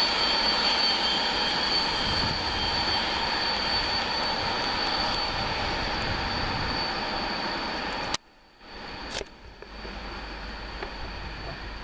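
Freight train of tank wagons rolling past: steady wheel-and-rail noise with a thin high-pitched whine running through it. The noise cuts out suddenly about eight seconds in, then returns quieter.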